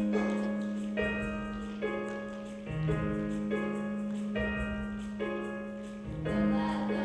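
Keyboard music: chords struck about every second over a held low note, which dips briefly a little under halfway through and again near the end.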